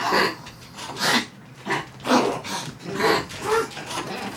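Dogs coughing with kennel cough: a string of short coughs, about two a second, some with a brief honk-like pitch.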